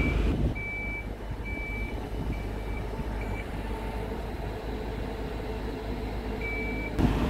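Warning beeper of a Cimolai MBH 50 travel lift sounding as the hoist drives: short, steady high beeps about half a second long, four in a row, then a pause, then one more near the end, over the continuous low rumble of the hoist's engine.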